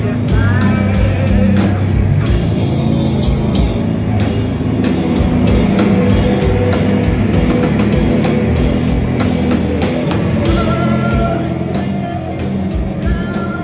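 Live heavy rock band playing loud, with distorted guitars and a pounding drum kit.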